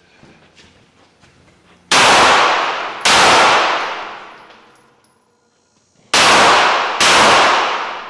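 Four handgun shots fired in two pairs, a second or so apart, each followed by a long ringing echo off the metal-walled building.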